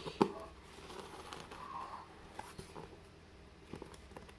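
A knife blade slitting the packing tape on a cardboard parcel, with a sharp tap just after the start, then faint scraping and small clicks of the cardboard being handled.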